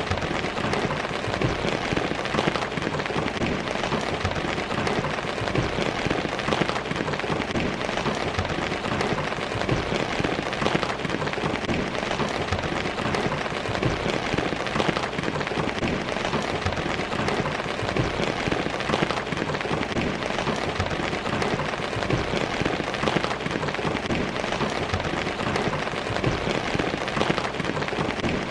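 Steady rain falling and pattering on a surface, dense with many small drop impacts.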